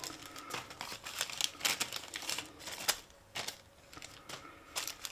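Small clear plastic packet crinkling and rustling in the hands, with many quick light ticks. The handling is busy for about three seconds, then thins to a few scattered ticks.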